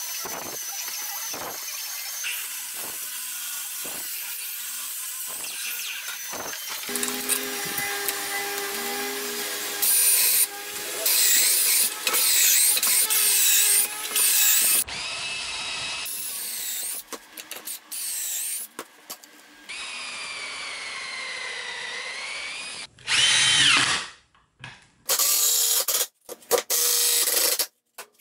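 Woodworking power tools in quick succession: a compound miter saw cutting boards, then a cordless drill boring pocket holes through a pocket-hole jig. The drill comes in short loud runs that start and stop abruptly, its pitch rising and falling as it spins up and winds down.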